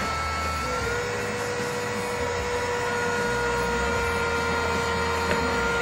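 Electric drive motor of a model railroad turntable whining steadily as the bridge rotates. It steps up in pitch about a second in, as the speed is turned up, then holds even.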